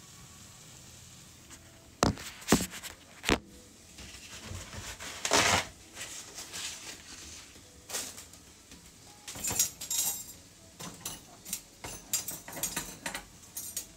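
Kitchen utensils and dishes knocking and clinking during pan cooking. There are a few sharp knocks in the first few seconds, a short rush of noise about five seconds in, and a quick run of clicks and clinks near the end.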